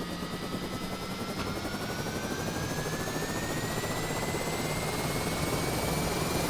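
Aircraft engine sound effect: a steady low hum and rushing noise, with a thin whine that climbs slowly and evenly in pitch as the engine spools up, growing a little louder.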